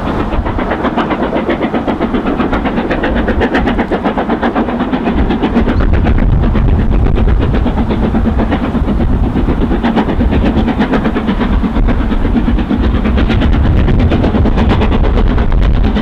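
Class 37 diesel locomotive running, a loud steady engine note with a fast, even rattle.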